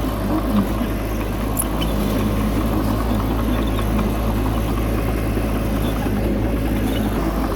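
Bulldozer's diesel engine running steadily, with a few faint clicks.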